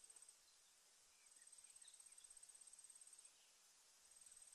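Faint, high-pitched insect trill, a fast, even buzzing pulse in bouts of about two seconds that stop and start again, over quiet outdoor background.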